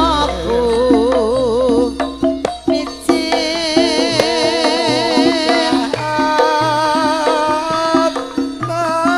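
Live Javanese gamelan music accompanying tayub: a female voice sings with wide, wavering vibrato over steady metallophone tones and hand-drum strokes.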